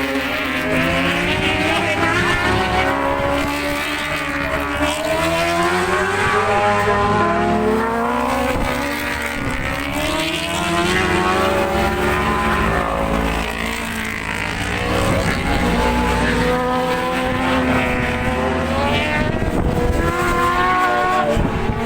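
Superbike racing motorcycles running at high revs as several bikes pass, their overlapping engine notes rising and falling throughout.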